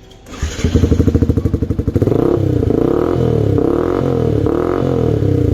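Yamaha R15 V2's single-cylinder four-stroke engine running through an aftermarket exhaust. It comes in about half a second in, then is blipped in a run of short revs from about two seconds in.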